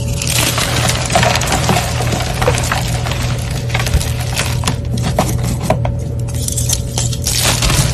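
Brittle, powdery dyed blocks crushed and broken by hand: crisp snapping and crunching with a dense crumbling crackle as the pieces fall to powder, busiest in the first few seconds and again near the end.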